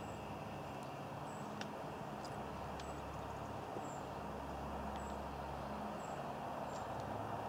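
Faint, steady outdoor rumble of distant vehicles, slowly growing a little louder toward the end, with a thin high chirp repeating about once a second over it.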